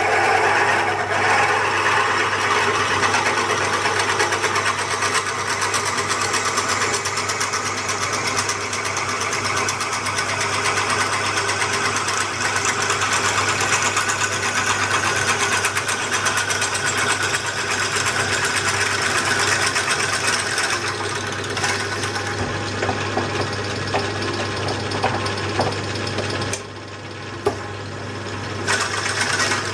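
Metal lathe running a boring bar between centres through a workpiece clamped to the saddle: a steady motor and gear hum under the hiss and chatter of the cut. The cutting noise drops away for about two seconds near the end, then returns.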